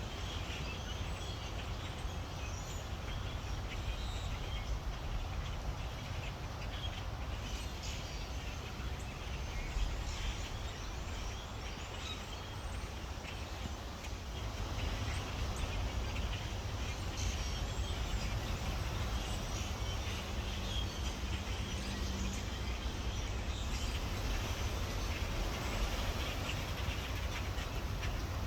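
A flock of birds calling and chirping over one another, over a steady low rumble.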